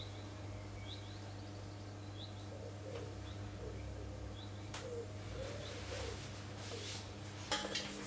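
A small bird chirping repeatedly, short rising chirps about once a second, while a pigeon coos a few times in the middle, over a steady low hum. A sharp click about halfway through and a louder clatter near the end.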